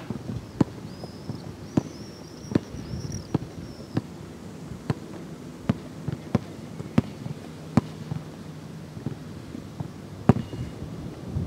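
Basketball being dribbled on an outdoor hard court: sharp single bounces about every three-quarters of a second.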